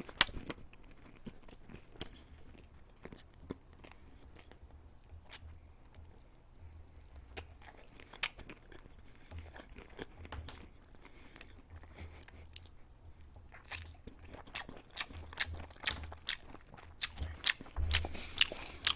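Close-miked chewing and crunching on a piece of oven-baked chicken coated in cheese powder: scattered crisp crunches and wet mouth clicks, sparse at first and more frequent over the last few seconds.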